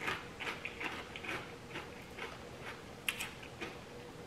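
Crunchy potato chips chewed close to the microphone: a run of quick, irregular crackles that thins out toward the end.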